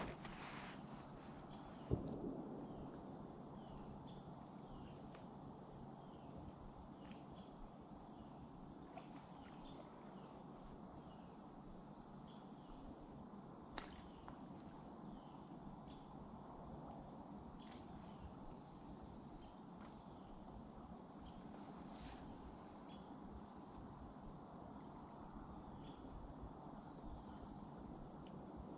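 Steady high-pitched chorus of crickets or similar insects over a soft hiss, with a single thump about two seconds in and a sharp click about halfway through.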